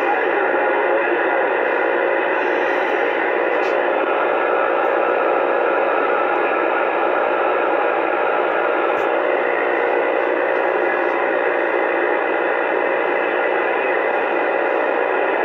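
Uniden Bearcat CB radio on AM channel 28 (27.285 MHz) giving out a steady rush of static hiss through its speaker, with faint steady tones in the noise and no clear station coming through.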